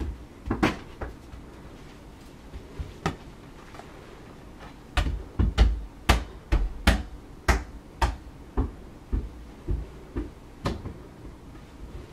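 Toy balls thudding down carpeted stairs: a couple of single knocks early, then about five seconds in a run of about a dozen thumps about half a second apart, like a ball bouncing step by step down the flight.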